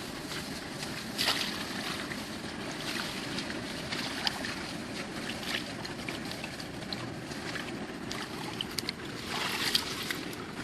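Steady wash of water with a few small splashes and drips scattered through it.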